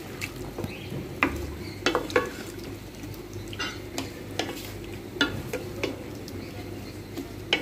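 Beef liver cooking in a frying pan, sizzling steadily in spiced oil and a little hot water, while a utensil stirs it with about a dozen irregular scrapes and knocks against the pan.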